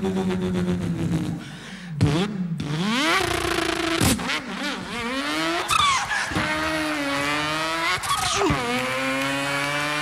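A man imitating a V8 Holden Torana with his voice into a microphone. An engine note is held, broken by a couple of sharp pops, then climbs in pitch again and again with breaks between the climbs, like a car accelerating through its gears.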